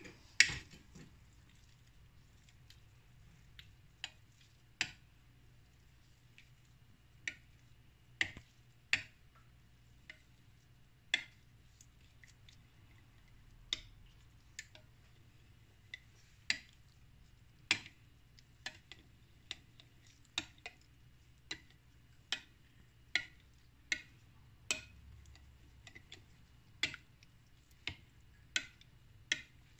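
Light, sharp clicks and taps at an irregular pace, roughly one a second, some louder than others.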